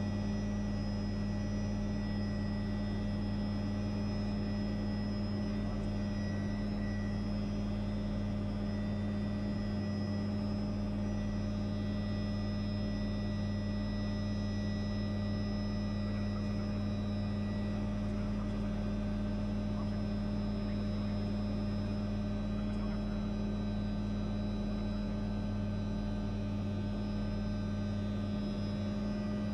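Helicopter turbine and rotor drone heard from inside the cabin: a steady low hum with a thin, steady high whine over it, unchanging throughout.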